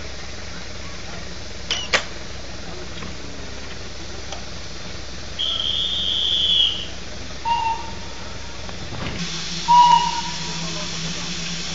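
A steam locomotive hissing steadily at rest, a low hum under the hiss, starting about nine seconds in. Before that, a quiet background with a sharp click and a few short, high whistle-like calls; the loudest call is near the end.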